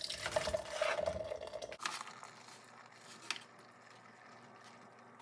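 A drink being poured into a mug, running for about two seconds and stopping abruptly, followed by a few faint clicks.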